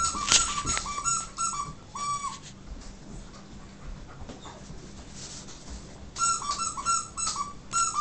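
Squeaky rubber dog toy squeezed in quick runs of about five squeaks a second, each squeak a short high tone of the same pitch. One run plays through the first two seconds and another comes near the end.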